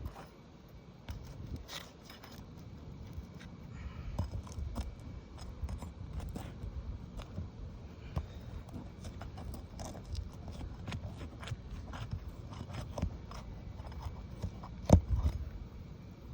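Metal roofing tool scraping and prying under brittle three-tab asphalt shingles, making irregular scratchy clicks and crackles, with a sharper knock about 15 seconds in. The shingles are too brittle to lift without damage.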